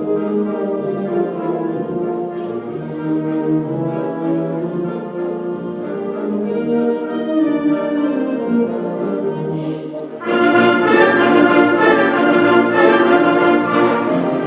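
Orchestral music led by brass, with sustained notes that swell into a louder, fuller passage about ten seconds in.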